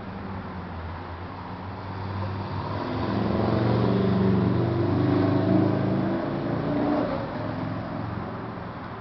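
A car driving past with its engine running, swelling over a few seconds to its loudest about halfway through, then fading away.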